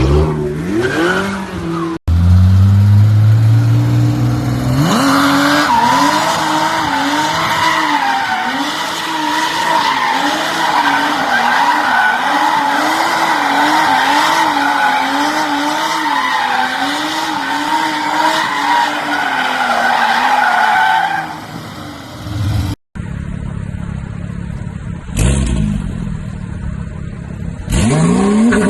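Porsche engine revved hard and held high, its pitch wobbling up and down about once or twice a second, with tyres squealing through a long drift or burnout. Short clips with brief rising revs come before and after it, split by abrupt cuts.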